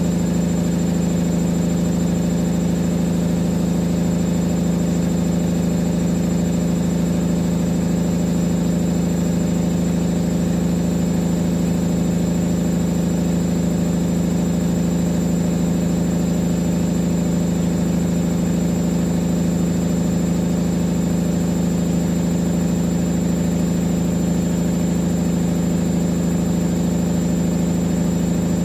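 Siemens Siwamat XS 1060 front-loading washing machine with its drum spinning at a steady speed: a loud, constant motor hum and whine that does not change.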